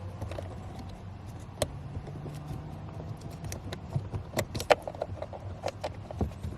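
Irregular small clicks and taps of a metal pick and hands working on plastic and metal parts, prying at the heater core pipe connection and its plastic clamp; the taps come thickest about four to five seconds in.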